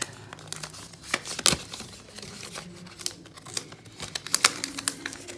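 Protective wrapping being peeled and pulled off a new iPad Air 4, crinkling irregularly with sharp crackles, the loudest about a second and a half in and again near the end.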